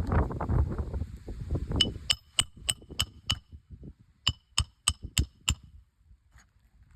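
Hammer tapping roofing nails into a new asphalt shingle: sharp ringing metallic taps about three a second, six, then a short pause and five more. A rush of wind on the microphone fades out over the first two seconds.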